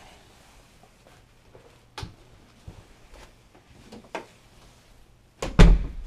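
A few light clicks and knocks in a quiet room, then a sharp knock and a loud, heavy thump near the end.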